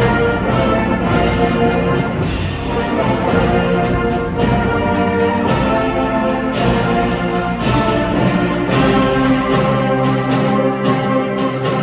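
Concert wind band playing full and loud, brass prominent, with frequent percussion strikes.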